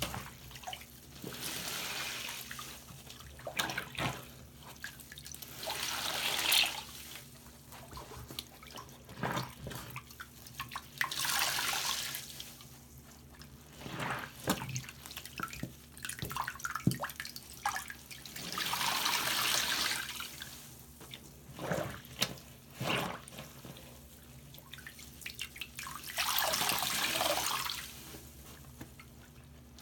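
Water-soaked sponges squeezed and pressed by hand in a sink of water: water gushes and fizzes out of the sponges in repeated swells every few seconds, with drips, splashes and crackling bubbles between squeezes.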